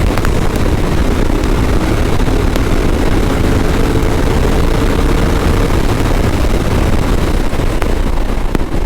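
Royal Enfield Continental GT 650's 650 cc parallel-twin engine running hard in fifth gear at about 160 km/h, under a heavy rush of wind noise on the microphone.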